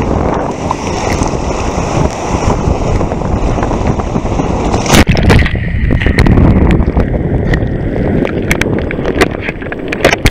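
Wind buffeting the microphone over rushing, splashing sea water as the camera moves fast through the surf. A sharp hit comes about five seconds in, followed by rougher spray and churning white water.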